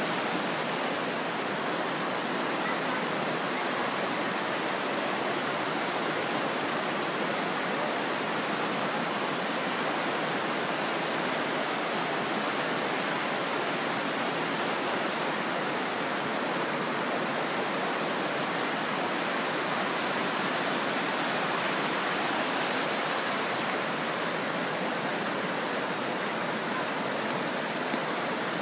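Ardèche river in flood after heavy rain, its high, fast water rushing steadily through rapids.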